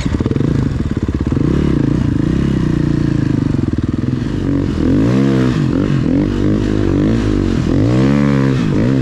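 Snowbike engine (a dirt bike on a snow track kit) running under throttle while riding, its pitch rising and falling several times in the second half as the revs go up and down.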